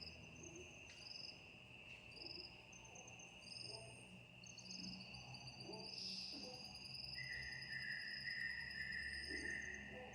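Night chorus of crickets and other insects: a steady high trilling with short chirps repeating over it. A lower buzzing call joins about seven seconds in.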